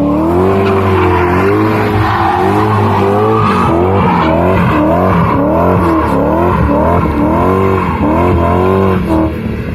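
BMW E34 engine revved hard while the car spins donuts, its pitch swinging up and down about twice a second as the throttle is worked. The rear tyres spin on the asphalt with a steady squeal and smoke.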